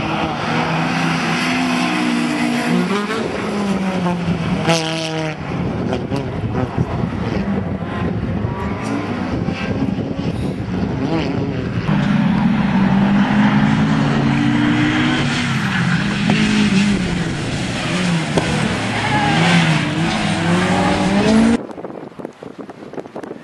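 MG ZR rally car's Honda B16 1.6-litre VTEC four-cylinder revving hard at full throttle, its pitch climbing and dropping with gear changes and lifts. Near the end the engine sound cuts off and gives way to wind on the microphone.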